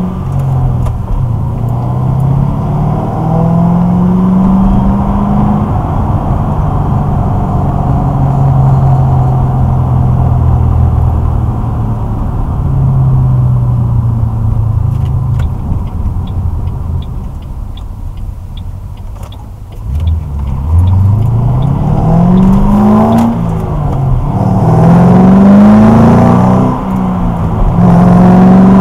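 2006 Ford Mustang GT's 4.6-litre V8, heard inside the cabin through a Pypes off-road X-pipe (no catalytic converters) and Magnaflow axle-back mufflers. The exhaust rises under acceleration, holds a steady cruising drone, eases off briefly, then pulls through several rising revs, each falling back as the car shifts up near the end.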